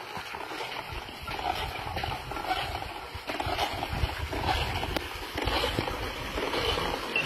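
Wind rumbling on the microphone in uneven gusts, outdoors on open sandy ground.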